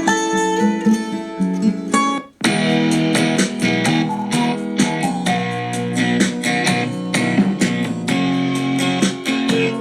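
Guitar music played through a Lexon Mino T Bluetooth speaker. It cuts out briefly a little over two seconds in, then plucked and strummed guitar starts again.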